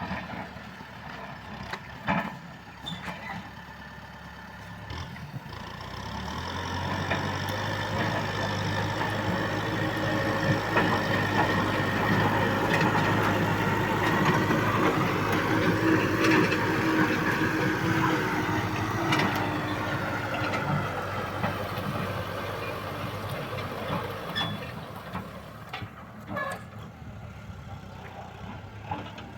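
Kubota M6040S tractor's four-cylinder diesel engine running steadily while ploughing, growing louder from about six seconds in and fading again after about twenty-four seconds, with a few sharp clicks.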